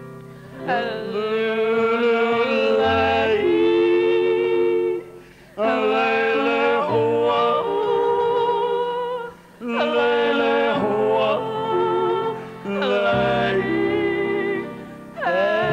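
Live band playing a Hawaiian-style tune. Long, wavering melody notes slide up into place, in phrases of about four seconds with short breaks between.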